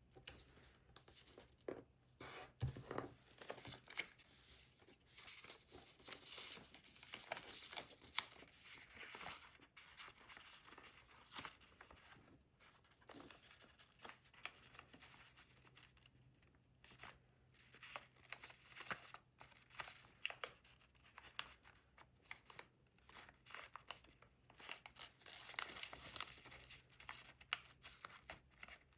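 Paper being folded and creased by hand, with irregular rustling and crinkling and short sharp crackles as the folds are pressed.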